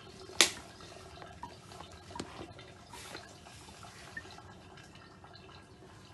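Small kitchen taps and clicks from seasoning a bowl of cracked eggs with salt and pepper. A sharp knock comes about half a second in, followed by a few lighter ticks.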